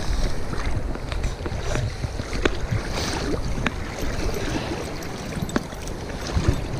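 River water rushing and splashing, with wind rumbling on the microphone and a few short clicks or splashes scattered through it.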